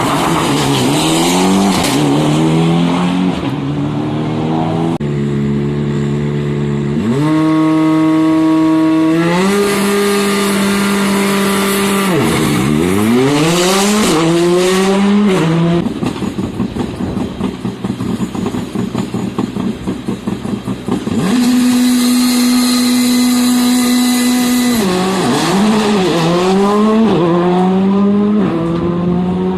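Rally car engines at full throttle, pitch climbing and holding, stepping with gear changes and dropping sharply under braking before rising again. In the middle comes a few seconds of rapid popping and crackling from the exhaust on the overrun.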